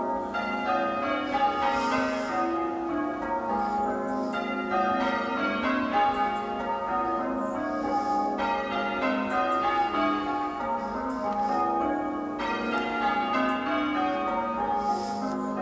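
Church bells being change-rung in a peal: a continuous, even stream of strikes, one bell after another, each ringing on into the next.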